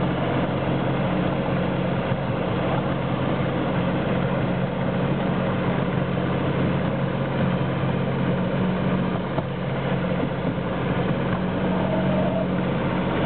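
Engine of a 7¼ inch gauge miniature railway locomotive running steadily at an even speed as it hauls the train along.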